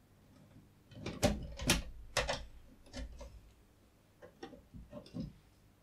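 Soldering-iron DIN plugs being pulled out of and pushed into the front sockets of Antex 690SD soldering stations: a run of clicks and knocks, the three loudest in quick succession about a second in, then lighter clicks.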